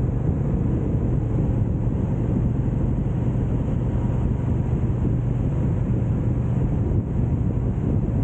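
Motorcycle engine running at a steady cruising speed, a constant low hum under heavy wind noise on the microphone while riding.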